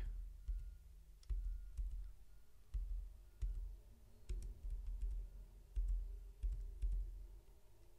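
Computer keyboard keys pressed one at a time: about ten separate, unevenly spaced clicks, as when stepping back through earlier terminal commands.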